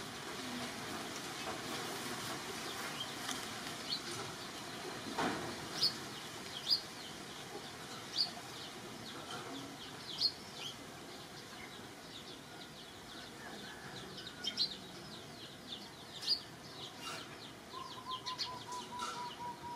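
Small birds chirping in the background: scattered short, high chirps over a steady hiss, with a quick run of repeated lower notes near the end.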